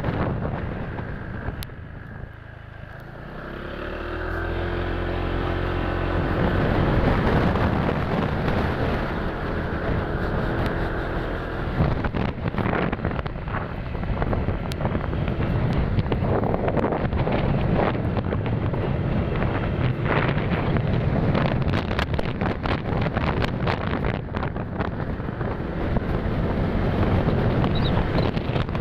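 Motorcycle riding along with heavy wind rushing over the microphone. A few seconds in, the engine note climbs and holds steady for several seconds as it pulls, then fades under the wind buffeting and crackle for the rest of the ride.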